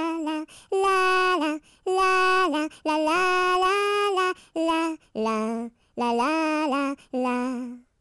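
A high voice singing a nursery-rhyme melody on 'la la la', unaccompanied, in held notes that step up and down in pitch with short breaks between phrases. It stops near the end.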